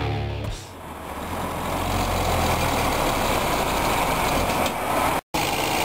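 Rock music ends in the first half second. Then heavy diesel engines of a semi-truck and a tractor run steadily close by. The sound cuts out completely for a moment about five seconds in.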